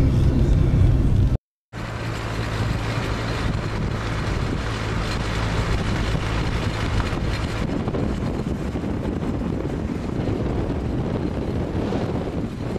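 Car engine and road noise from inside a moving car. The sound cuts out briefly just over a second in, then resumes as a steady rushing of wind on the microphone over a low engine hum.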